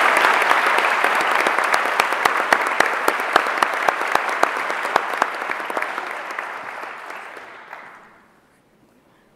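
Audience applauding, with sharp single claps close by standing out at about three a second; the applause dies away about eight seconds in.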